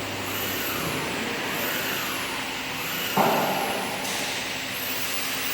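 CNC router's stepper-driven gantry travelling back to its home position under DSP controller command. Motor whines fall in pitch again and again as the axes move and slow, over a steady machine hum, with a brief clack about three seconds in.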